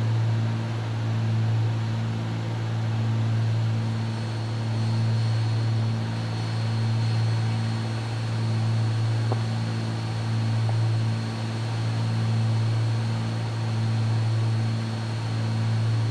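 Cabin drone of a Cessna 310's twin piston engines and propellers in cruise, a steady low hum that swells and fades about every two seconds as the two propellers beat slightly out of sync.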